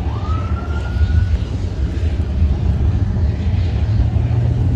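A loud, steady low rumble, with a thin tone that glides upward during the first second.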